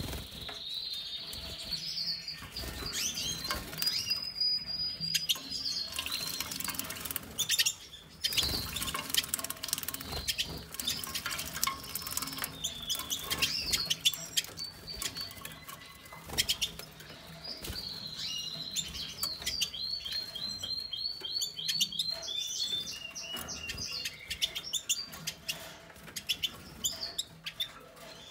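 A female American goldfinch bathing in a plastic bird bath: water splashing and pattering, with wing flutters, through the whole stretch. Short high finch chirps and twitters come now and then, with a run of them about two-thirds of the way through.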